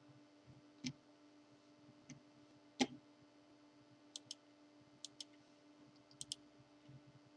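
Computer mouse clicking: a few single clicks, the loudest about three seconds in, then three quick double clicks, over a faint steady hum.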